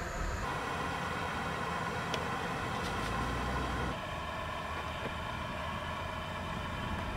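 Gas canister camp stove burner running steadily under a pot of water, with a couple of faint clicks about two and three seconds in.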